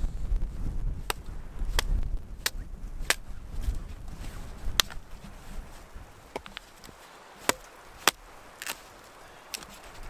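Small hatchet chopping into a branch: a run of sharp strikes a little over half a second apart, then fewer and more spread out in the second half.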